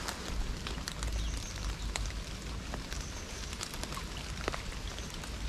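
Rain falling, with many scattered sharp drops ticking close by over a steady low rumble.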